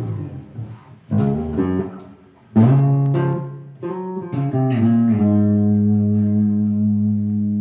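Electric bass guitar playing the last few plucked notes of a tune, then a final note held and left ringing from about five seconds in.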